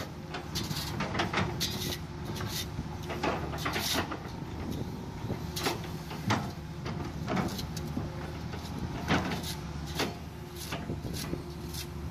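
Hitachi hydraulic excavator's diesel engine running steadily while the bucket digs into soil and rubble, with irregular knocks and scraping clatter throughout.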